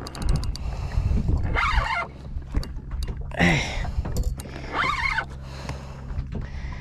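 Steady low hum of the boat's engine while a Penn 4000 spinning reel is cranked against a hooked fish, with a quick run of clicks right at the start. Three short bursts of a man's voice, straining as he reels, come about two, three and a half and five seconds in.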